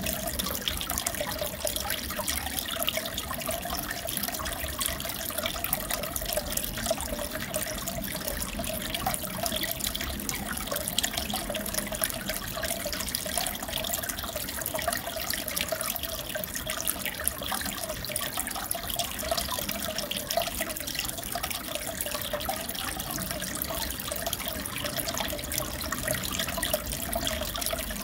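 Steady trickling and bubbling of aquarium water, as circulating water splashes at the surface, with a constant crackle and a faint wavering tone.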